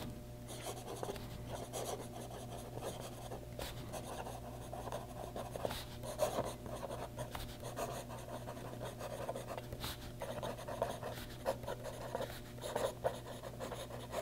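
Fountain pen's flexible italic nib scratching across paper in a run of short, faint, irregular strokes as a sentence is written by hand.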